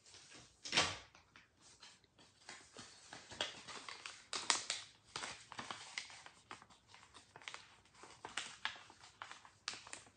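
A sheet of white copy paper being handled and folded by hand: irregular rustling and crinkling with small sharp crackles as it is bent and creased.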